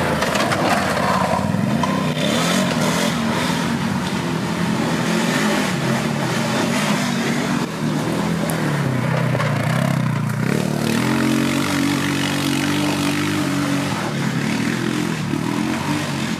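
Racing quad bike engines revving hard and easing off over and over, the pitch rising and falling. From about ten seconds in, one engine holds a steadier, higher note for a few seconds.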